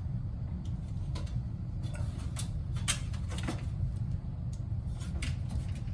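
Scattered light clicks and plastic taps of an air-conditioning unit's filter being worked out of its slot, over a steady low hum.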